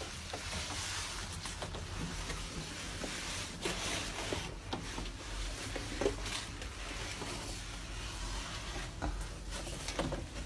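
Rustling and scuffing of clothing and body against rock as a miner crawls through a narrow tunnel, with a few faint knocks over a low steady hum.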